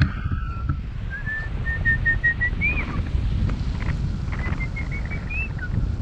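Wind rushing over the microphone of a tandem paraglider in flight, with two short runs of high whistled notes that climb in pitch and end in a quick rise and fall.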